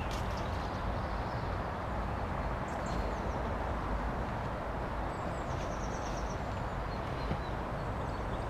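Outdoor ambience: a steady low rumbling noise with a few faint bird chirps, including a short rapid trill of repeated high notes about five and a half seconds in.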